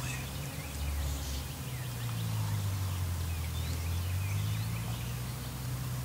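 A steady low rumble that shifts in pitch a few times, with small birds chirping faintly over it.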